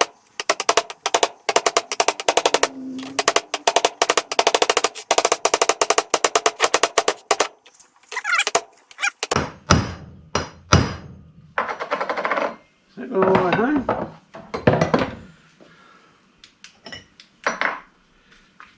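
Steel hammer striking rapidly on an old bearing race used as a drift, driving the new front wheel bearing race evenly into the hub: a fast run of ringing metallic taps for about seven seconds. After that come scattered clunks and scrapes of tools and parts being handled.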